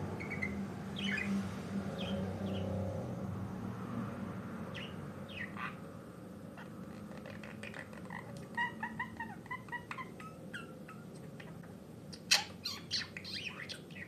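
Budgerigar chattering: scattered short chirps, a run of quick warbling notes in the middle, and a sharp, louder call near the end followed by more chirps.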